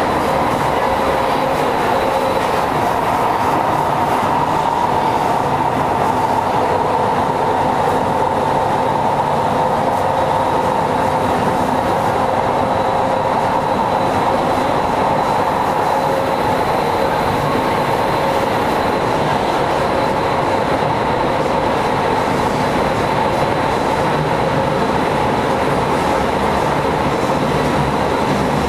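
Kyoto Municipal Subway Tozai Line 50 series train running at a steady speed through the tunnel, heard from inside the car: even wheel-on-rail running noise with a constant hum that holds one pitch throughout.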